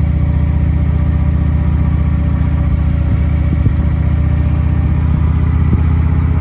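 Motorcycle engine running steadily at an even speed, close to the microphone, with a fast, even pulse of firing strokes.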